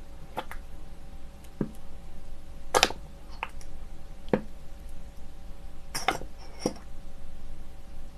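Sriracha sauce squeezed from a plastic squeeze bottle into a small ceramic bowl: a string of short squirts and soft clicks, the loudest about three seconds in and again about six seconds in.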